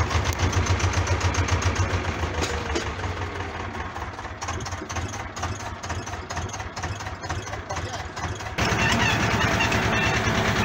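Ursus tractor's diesel engine running with a steady, even throb, heard from inside the cab. About eight and a half seconds in, the sound changes abruptly to a louder, brighter mechanical noise.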